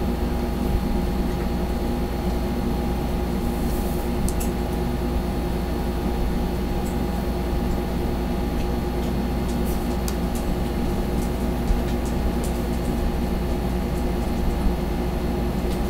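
Steady machine hum with several steady tones and a low rumble, like a room air conditioner running. Faint, short scratches of a felt-tip marker drawing on paper come now and then.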